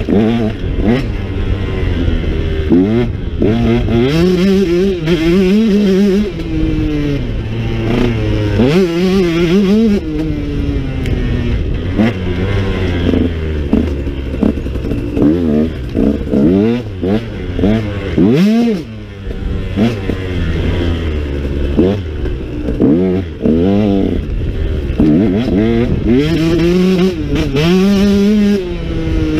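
Husqvarna enduro motorcycle engine under way, its pitch climbing and dropping again and again as the throttle is opened and closed, heard from the rider's helmet camera. The engine note briefly drops about two-thirds of the way in.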